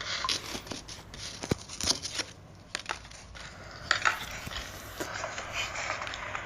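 Rustling and crinkling of packing with scattered light clicks and knocks, as a new pair of sneakers is handled in its opened shoe box.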